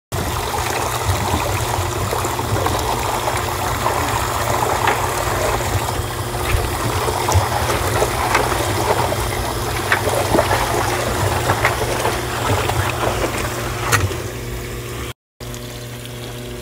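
Water filling a top-load washing machine drum, with a hand swishing through the soapy water and many small splashes. Near the end the sound drops to a quieter, steady spray of fill water falling onto clothes.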